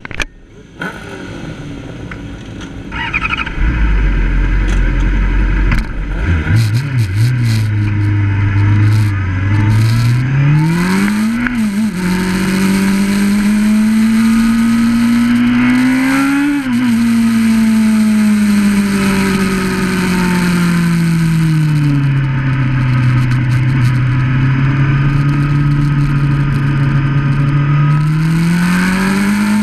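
Onboard sound of a 600RR sport bike's inline-four engine under way. It starts with low rumble and rushing noise. The engine then pulls up through the revs, its pitch dropping sharply at two gear changes. It falls slowly to a lower steady note and rises again near the end.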